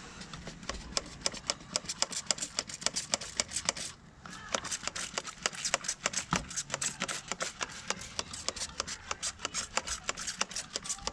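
Brisk, regular scratchy strokes of a small brush scrubbing a corroded battery terminal, about five strokes a second, with a brief pause about four seconds in.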